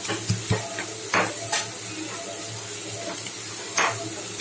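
Stone pestle pounding raw crab in a small stone mortar, a few sharp knocks in the first second and a half and one more near the end, cracking the shells so the juices come out. A pan sizzles steadily underneath.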